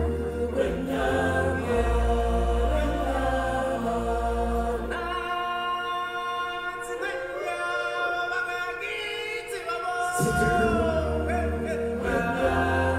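A choir of voices singing in long held chords, with a deep bass note sounding under parts of it.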